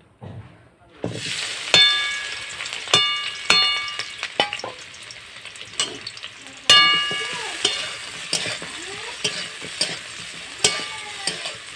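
Food sizzling in hot oil in a pan. The sizzle starts suddenly about a second in. A metal utensil stirs the food and clangs against the pan in repeated ringing strikes.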